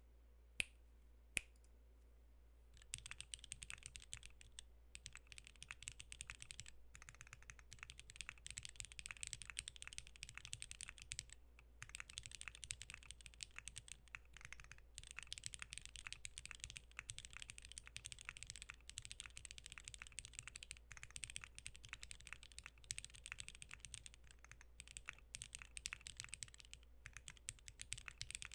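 Typing on a Maggio60 mechanical keyboard with lubed JWK Black switches, a half carbon-fibre plate, an O-ring mount and DCS keycaps. Two single keystrokes come in the first second or so, then fast, continuous typing starts about three seconds in.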